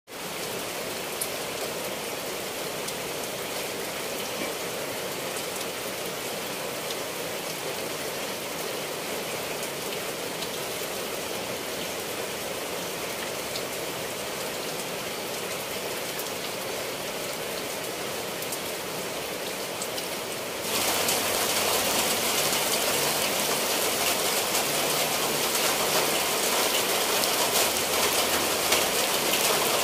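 Steady rain falling on leaves and a tiled roof, with no other sound. About two-thirds of the way through it turns suddenly louder and brighter.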